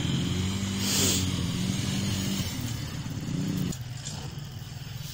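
A vehicle engine running steadily, with an even low hum that quietens abruptly a little past three and a half seconds in. A short breathy hiss sounds about a second in.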